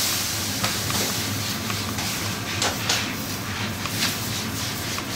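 Water sizzling off a hot flat-top dosa griddle, the hiss dying away as a cloth is wiped across the surface in repeated short strokes. The water is sprinkled on to test whether the griddle is hot enough. A steady low hum runs underneath.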